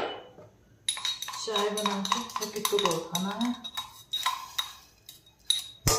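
Steel dishes and cutlery clinking and knocking as they are handled at a kitchen counter. A run of clicks starts about a second in and dies away near the end.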